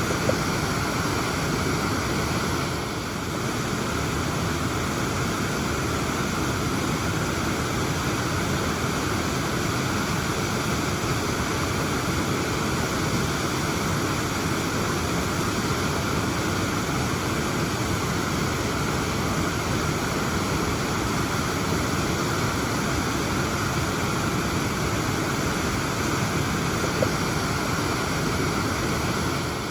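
Steady rush of a waterfall, water falling and splashing continuously with no break.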